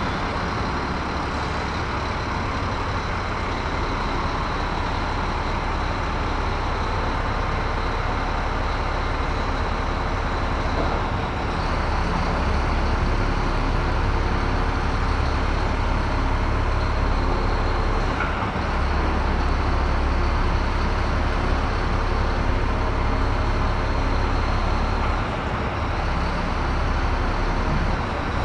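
Heavy 45-ton SMV forklift running steadily, its engine and hydraulics working the rotating ingot clamp. The low rumble grows somewhat louder about twelve seconds in.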